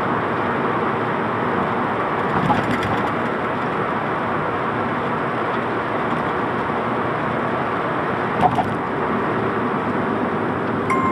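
Steady road and engine noise inside a small car's cabin driving downhill on a wet road, with tyre hiss from the wet surface and a couple of brief clicks.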